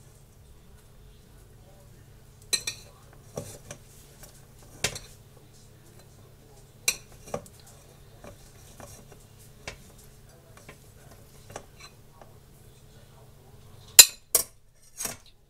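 Spoon and dishes clinking and knocking against a stainless steel saucepan, a handful of sharp separate clinks spaced a second or more apart, the loudest near the end. A steady low hum runs underneath.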